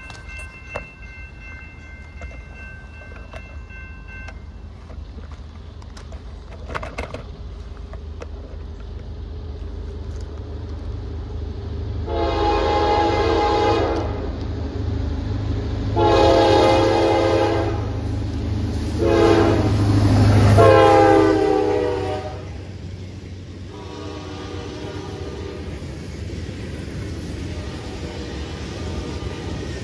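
Diesel freight locomotive's air horn sounding the grade-crossing pattern, long, long, short, long, with the last blast dropping in pitch as the locomotive passes. The engine's rumble swells under the horn, then the freight cars roll by with a steady rail noise.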